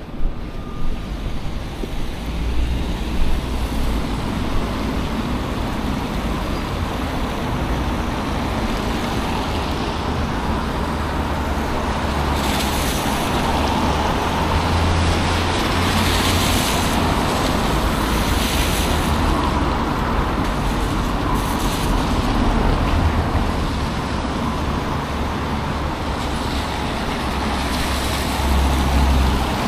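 Street traffic: a steady wash of passing cars and heavier vehicles with a low engine rumble, swelling with several louder passes about halfway through.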